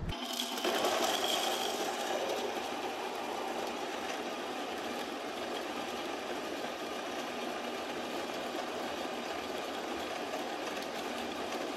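Electric coffee grinder running steadily, grinding the beans in its hopper, a little louder in its first couple of seconds.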